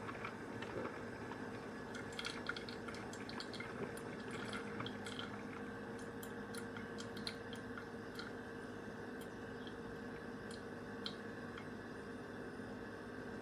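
ZWILLING Enfinigy drip coffee maker brewing: hot water dripping through the filter into the thermal carafe as irregular drips over the machine's steady hum. The drips come thickest early on and thin out after about eight seconds.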